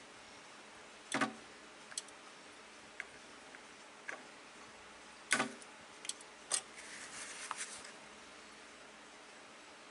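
Sunkko 737G spot welder firing pulses to weld battery straps onto the ends of drill battery cells: a series of short sharp snaps at uneven intervals, the loudest a little after a second, around five and a half seconds and around six and a half seconds in, with faint rustling from handling the pack afterwards.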